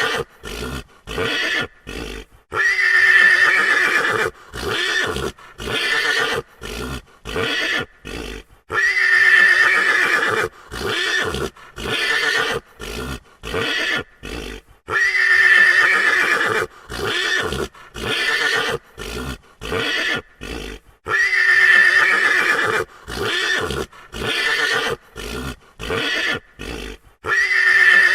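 A frightened horse neighing: a long, shrill neigh followed by a run of short choppy calls, the pattern repeating about every six seconds as a looped effect.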